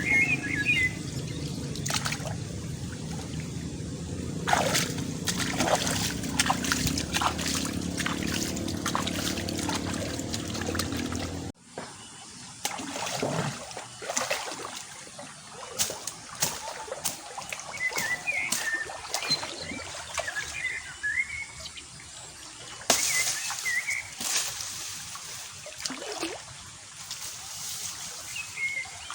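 Shallow water splashing and trickling in many short irregular strokes, as hands work through water and mud in a hole. About a third of the way in the sound cuts abruptly, and the low steady background drops away; after that the splashes are fewer and quieter.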